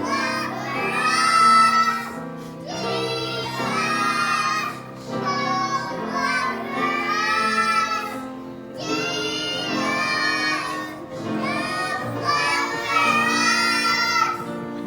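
A child singing a song in phrases of about two seconds with short breaks between them, with music under the voice.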